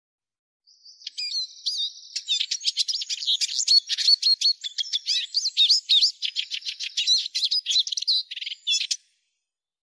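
Eurasian siskin singing: one long, fast, high-pitched twittering phrase of chirps and trills, starting just under a second in and stopping about a second before the end.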